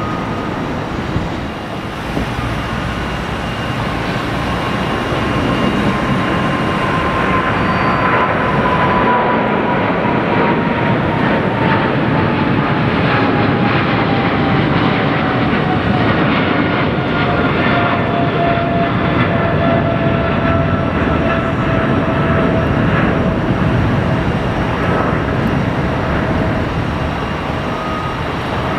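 Boeing 777-300ER's GE90 turbofans at takeoff thrust, a loud steady jet roar with a fan whine that slowly falls in pitch as the airliner climbs past and away.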